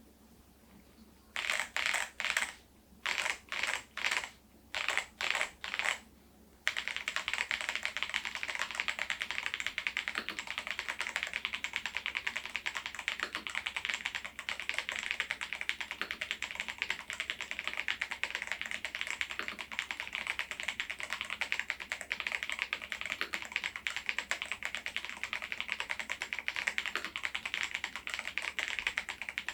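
Machenike K500 PRO mechanical keyboard with Adelie V2 switches being typed on fast. A few short separate bursts of keystrokes come first, then from about a quarter of the way in a dense, unbroken stream of rapid typing.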